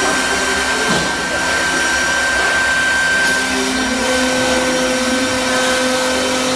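CNC router with an air-cooled 3 kW spindle running: a steady rush of air with a constant whine over it. A lower hum grows stronger about four seconds in.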